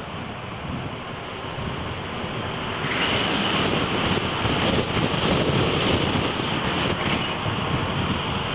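Wind rushing over the microphone of a moving vehicle, mixed with road and engine noise. It gets louder about three seconds in.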